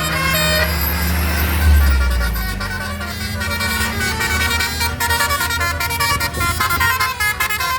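Bus 'telolet' basuri musical horn playing a quick run of changing notes, over a bus engine rumble that swells about two seconds in.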